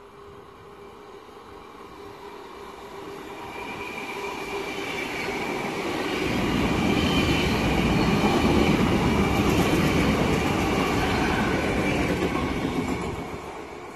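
NS VIRM double-deck electric train passing close by on the track beside the platform. It builds from a distant hum of several steady tones to a loud rush of wheel and track noise, holds loud for several seconds, then drops away near the end.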